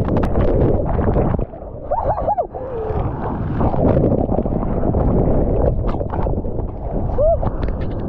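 Breaking shorebreak wave churning over a submerged action camera: a loud, muffled underwater rush and rumble of turbulent white water and stirred-up sand. It eases briefly about two seconds in.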